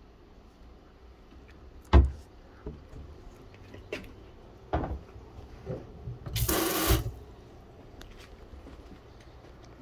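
Under-sink cabinet door shutting with a sharp knock, followed by a couple of lighter knocks, then a brief rush of water from the kitchen faucet into the stainless steel sink, lasting about half a second.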